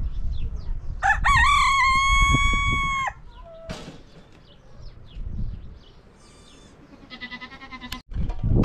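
A rooster crowing once: one long call of about two seconds that swoops up, holds level and then cuts off. A shorter call follows near the end.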